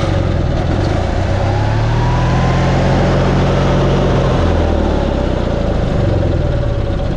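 Onan 4000 Emerald Plus RV generator engine running steadily just after starting, its pitch shifting slightly a couple of times. It keeps running because the oil pressure switch wire is held to ground, bypassing the switch. This points to a switch clogged with gummed-up oil as the reason it shuts off when the start button is released.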